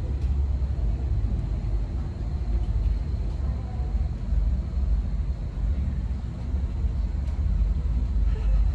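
Steady low rumble of background room noise, with no distinct events.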